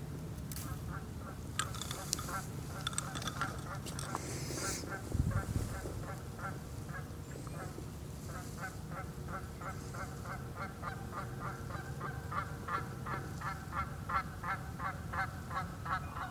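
Geese honking over and over, the honks getting louder and closer together in the second half. There is some rustling early on and a dull thump about five seconds in.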